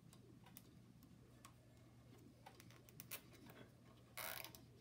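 Faint, irregular clicks and taps of a screwdriver and a drive belt being worked onto a small air compressor's pulley, with one brief louder scrape near the end, over a low steady hum.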